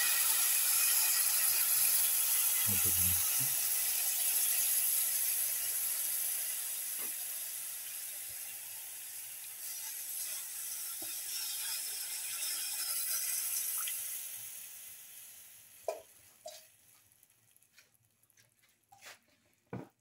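Water added to a hot pan of oil-fried spices, sizzling and hissing loudly, then slowly dying away over about fifteen seconds as the pan cools. A few light clicks come near the end.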